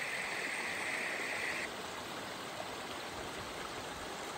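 A small stream running steadily over rocks in a mossy gully, a continuous rushing trickle; a brighter hiss in the first second and a half then drops away.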